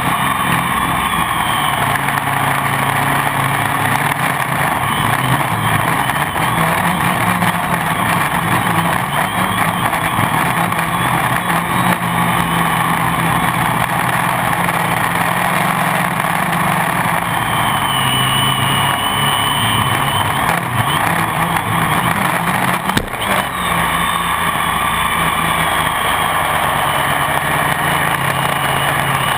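Gaui 500X quadcopter's electric motors and propellers whirring steadily in flight, heard from on board. The pitch shifts up and down with the throttle, and a higher whine glides up and down a little past the middle.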